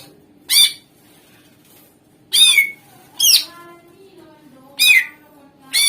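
Cucak ijo (greater green leafbird) giving loud, sharp calls that each sweep quickly downward in pitch, five of them at irregular gaps, over faint softer chirping.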